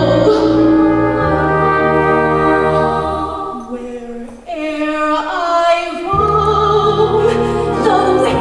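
Musical-theatre number played by an orchestra with brass, holding sustained chords; the music thins and dips about four seconds in, then comes back with a female voice singing over it.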